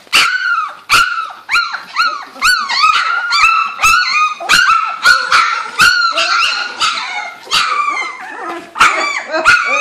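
A litter of young Labrador retriever puppies, two to three weeks old, yelping and squealing in a continuous string of short, high-pitched cries, about two or three a second, each rising then falling in pitch. These are the first attempts at barking of puppies just learning to use their voices.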